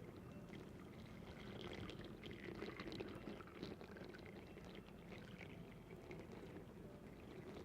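Faint, soft trickling and bubbling like liquid being poured, with small irregular ticks over a low steady hiss.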